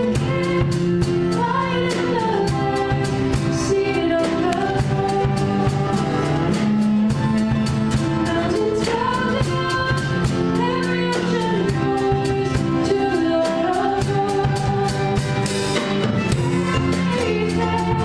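Small live band playing a song: a woman sings over acoustic guitar, cello and drums, with a steady beat.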